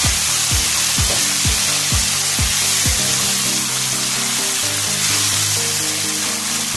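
Tomato sauce sizzling in a nonstick frying pan as it is stirred with a wooden spoon, over background music with a steady beat of about two thuds a second that gives way to held low notes about three seconds in.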